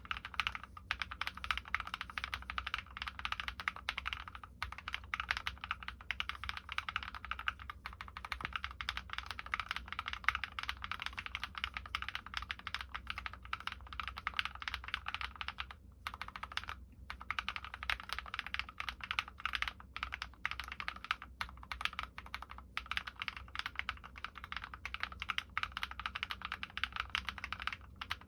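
Continuous fast typing on a Drop + OLKB Planck ortholinear mechanical keyboard with Krytox-lubed linear switches (MX Black housings with Kailh Red stems) and MT3 keycaps, a steady stream of keystrokes broken by two short pauses a little past the middle.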